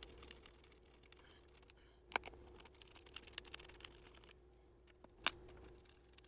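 Faint metallic clicks and ticks of an Allen wrench working screws out of a chair's tilt mechanism, with two sharper clicks, about two and five seconds in.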